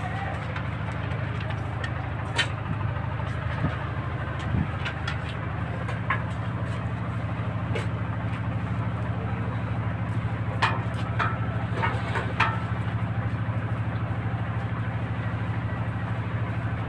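Steady low drone of ship's machinery running, with a handful of sharp metallic clicks and taps scattered over it.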